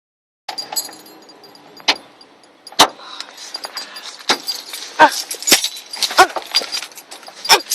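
Sharp clicks and knocks, about a dozen at uneven intervals, with a few short squeaks, from hands and tools working on the plastic inner panel and fittings of a car door.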